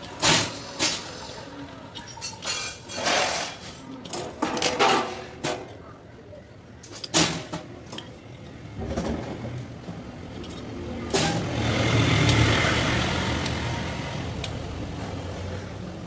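Sharp clicks and knocks of hand tools such as pliers on a refrigerator compressor's copper tubing. About eleven seconds in, a steady rushing noise starts abruptly, peaks, then slowly eases.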